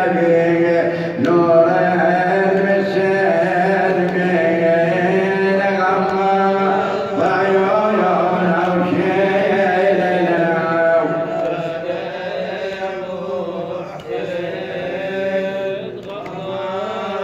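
A male radood chanting an Arabic Shia nawha (mourning lament) solo, in long sung lines that bend and waver in pitch, with no instruments. It grows a little softer in the second half.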